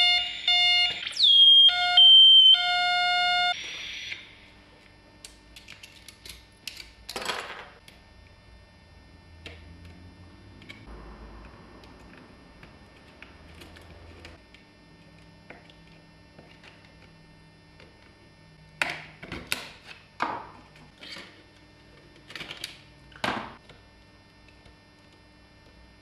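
Circuit-bent walkie-talkie giving out harsh electronic beeps and buzzing tones, stepping between pitches with a quick falling glide, which cut off about three and a half seconds in. After that come scattered short crackles and clicks, with a burst of them near the end.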